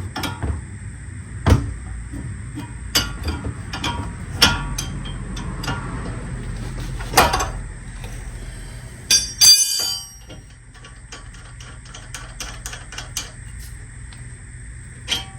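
Metal tools clicking and knocking on a truck's tie rod nut as it is worked loose with a wrench. There are irregular sharp clicks throughout and a bright metallic clatter about nine to ten seconds in.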